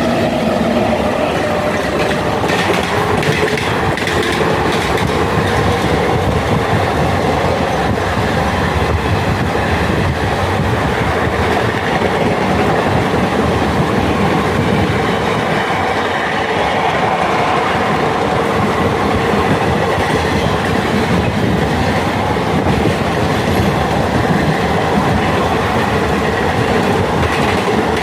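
ICF passenger coach running along the track: a steady rumble with the clickety-clack of wheels over rail joints and a faint squeal from the wheels.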